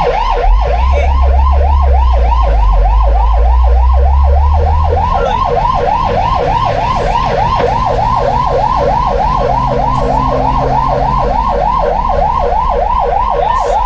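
Fire truck's electronic siren in fast yelp mode, its pitch sweeping up and down about four times a second without a break. A low engine rumble runs underneath for the first few seconds.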